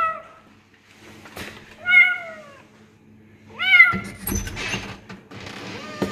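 Kitten meowing several times, each meow bending down in pitch, with clear meows about two and three and a half seconds in. About four seconds in comes a short knocking clatter.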